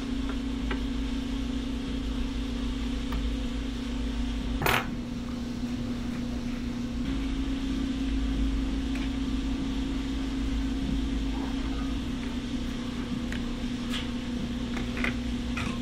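Small metal clicks and clinks as the parts of a mini PC's chassis are handled: one sharp click about five seconds in and a few light ones near the end, over a steady low hum.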